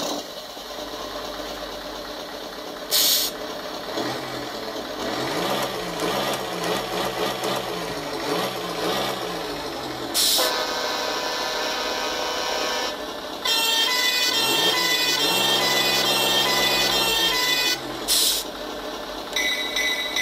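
Simulated truck engine sound from an ESP32 RC engine sound unit through a small speaker, revving up and down with the transmitter's throttle, its volume following the throttle. Three short hisses and a steady horn-like tone come partway through.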